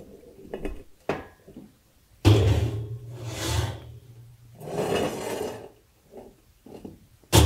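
Metal scraping and clanking at a wood-fired kitchen stove: the small oven door is opened and a lidded pot is slid over the iron stovetop into the oven, in several long scrapes from about two seconds in. The oven door shuts with a sharp clack near the end.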